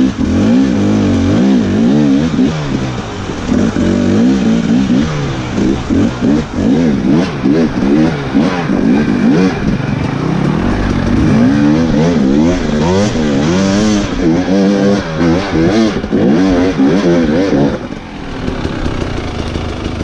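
Dirt bike engine revving up and down over and over under quick changes of throttle as it climbs a rocky trail. Near the end the revs fall away and it runs quieter.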